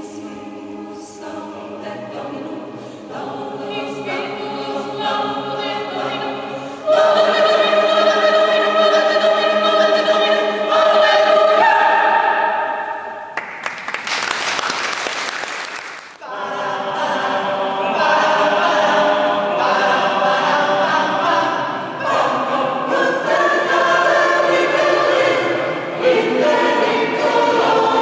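Large mixed choir of men's and women's voices singing, soft at first and then swelling to full voice about a quarter of the way in. About halfway through, a loud hiss lasting about two seconds replaces the singing, and then the choir sings on at full voice.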